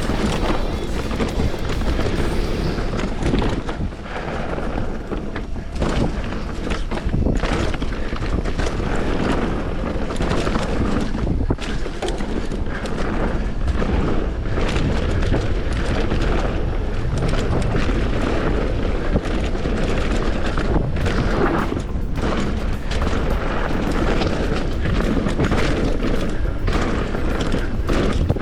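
Mountain bike descending fast over rough, rocky trail: wind buffeting the camera microphone, with tyres and frame rattling and knocking over rocks in a dense, continuous clatter.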